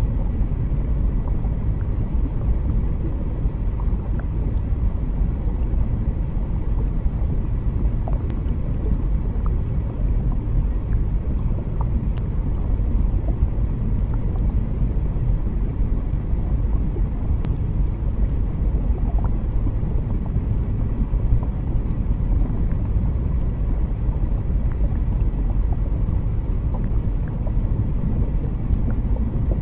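Steady low underwater rumble, with faint small ticks scattered through it.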